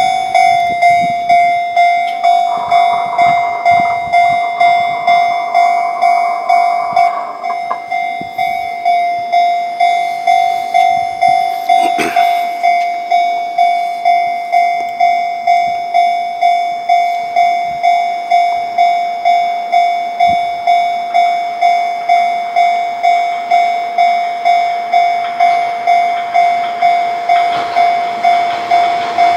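Japanese railway level-crossing warning bell ringing its repeated electronic clang, about three strikes every two seconds. A second, higher tone joins for about five seconds near the start.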